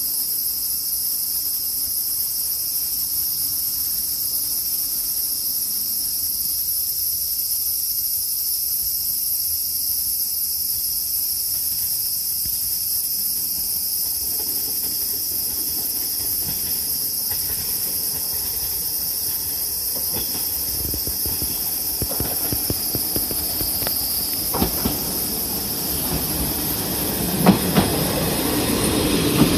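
Noto Railway NT200 diesel railcar approaching and pulling in, its engine and wheel noise building over the second half, with a few sharp clacks of wheels over rail joints near the end. A steady high shrill of summer insects runs underneath.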